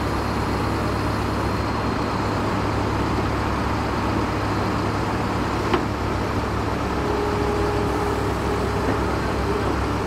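Steady low rumble of heavy vehicle engines running, with a single sharp click a little before six seconds in.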